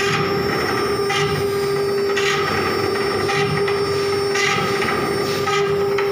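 Glass-engraving CNC router at work: a steady spindle whine under a scratchy grinding rasp that swells about once a second as the bit cuts across the glass.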